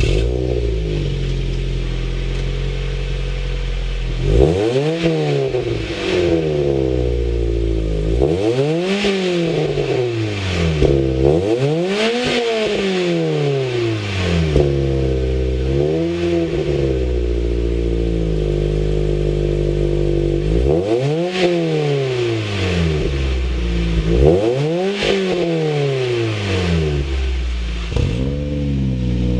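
2013 Mazda MX-5 Miata's 2.0-litre four-cylinder running through a RoadsterSport header, midpipe and Street Single muffler. It idles for a few seconds, then is revved repeatedly in short blips, each rising and dropping back to idle.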